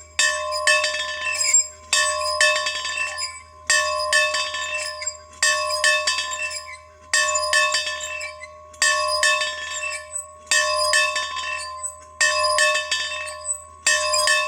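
A bell being rung, struck in quick pairs over and over, a pair about every one and a half to two seconds. Each strike rings on clearly at a steady pitch until the next.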